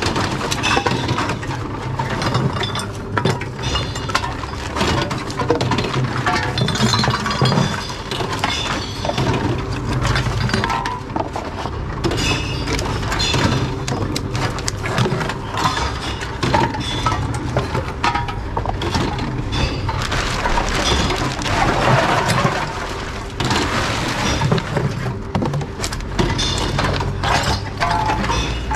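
Glass bottles clinking and clattering as they are fed one after another into a reverse vending machine, over the steady hum of its motor. Glass knocks and breaks inside the machine's mechanism.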